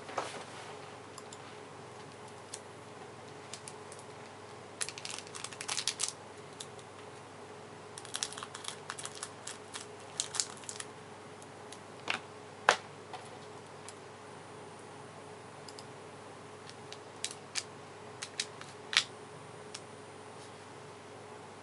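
Crinkly plastic wrapper of a Magic: The Gathering Portal Three Kingdoms booster pack being handled, in scattered clusters of small crackles with a few single sharp snaps, over a faint steady hum.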